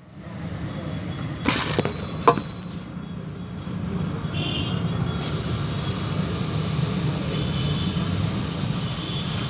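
Car engine running steadily, with two sharp clicks in the first few seconds.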